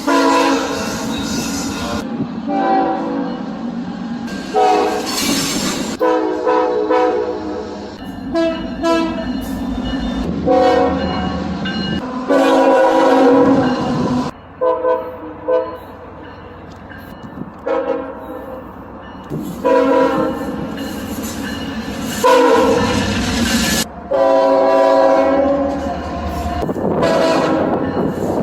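Locomotive air horn sounding multi-note chords in a series of long and short blasts, with the low rumble of the passing train underneath.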